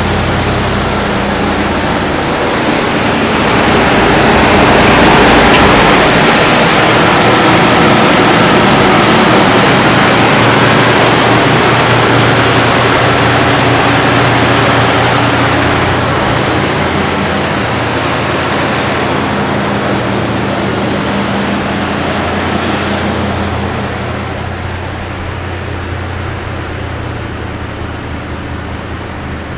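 1966 Ford Galaxie 500's 352 cubic-inch FE V8 idling steadily shortly after a cold start, heard loudest beside the open engine bay and quieter from inside the cabin near the end.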